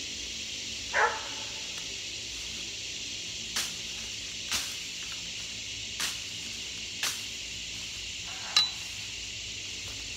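A cane cutter's blade swishing and chopping through tall grass in about six short, sharp strokes spaced a second or so apart, the loudest about a second in. A steady high hiss runs underneath.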